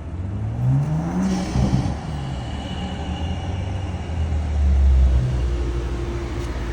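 BMW M340i's turbocharged B58 inline-six with a muffler delete and aftermarket intake, revving up over the first second and a half and then running with a low exhaust rumble that swells about five seconds in.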